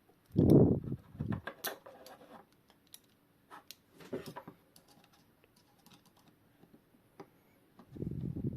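Scattered small clicks and taps of metal clock parts being handled while a loose mainspring is worked into a Junghans wall clock movement, with a dull thump about half a second in and a low rumble of handling near the end.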